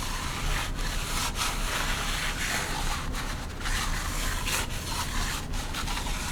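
Continuous rubbing and scraping with irregular light taps, as the parts of a 13B rotary engine are handled during teardown.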